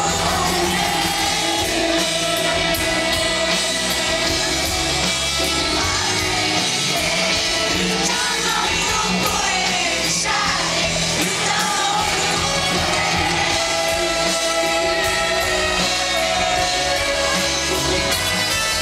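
Live rock band playing a song with a male lead singer, loud and steady, in a large outdoor venue's live sound.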